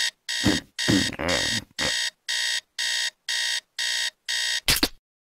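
Digital alarm clock beeping in a fast repeating pattern, about two beeps a second, with a lower, rougher sound beneath the first few beeps. A short sharp knock near the end, after which the beeping stops.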